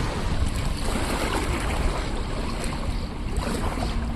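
Strong gusty wind buffeting the microphone over choppy river waves splashing. A faint steady low hum comes in about halfway through.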